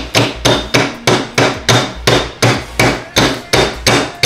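Hammer tapping a steel pin into the OEM shift plate held in a vise, metal on metal, in an even rhythm of about three strikes a second: the pin being started into the shifter.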